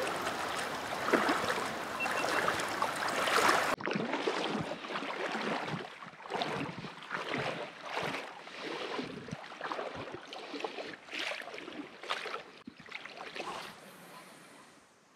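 Sea water sloshing as someone wades through the shallows, a swish of water with each stride, fading away toward the end. The first few seconds hold a denser, steady rush of water noise that breaks off abruptly.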